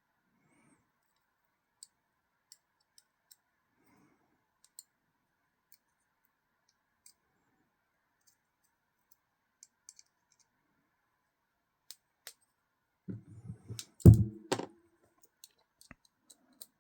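Scattered faint clicks and taps of small tools and knife parts being handled on a work surface, then a short cluster of much louder clunks and rattles about thirteen seconds in, as something is set down or shifted.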